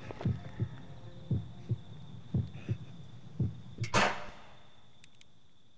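Heartbeat sound effect, a low double thump about once a second, then a single loud revolver shot about four seconds in that dies away.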